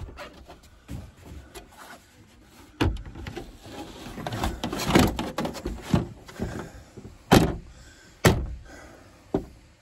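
A run of knocks and clunks of something being handled and shut, busiest in the middle, with a few sharp clunks standing out.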